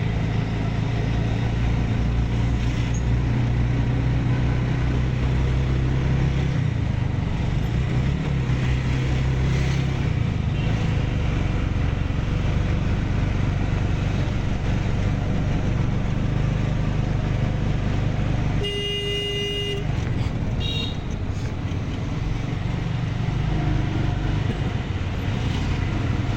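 A vehicle's engine runs steadily over road noise while driving. About two-thirds of the way through, a vehicle horn sounds once for about a second.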